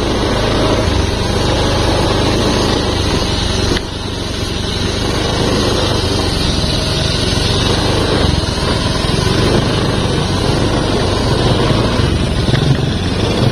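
Small motorcycle engine running steadily while riding along a rough dirt track, with a dense, continuous road noise over a low hum.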